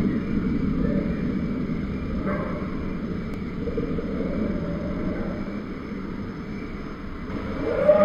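Custom-made dinosaur roar sound effect: a long, deep, rumbling growl that slowly fades, with a new roar of wavering pitch starting near the end.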